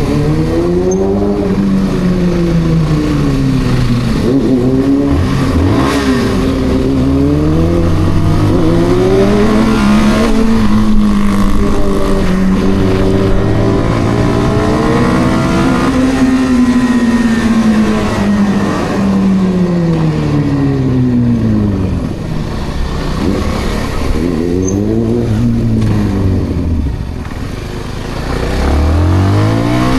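Kawasaki ZX-6R inline-four engine under way, revving up and down repeatedly as the bike accelerates and slows, its pitch climbing and falling over and over. Near the end it drops low and quieter, then picks up again.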